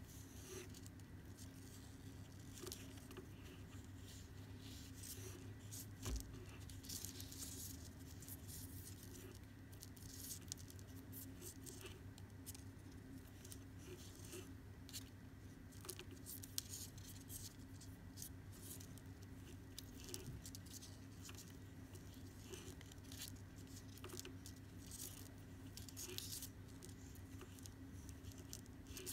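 Faint rustling and small ticks of macrame cord being handled and pulled tight while clove-hitch knots are tied, over a steady low hum.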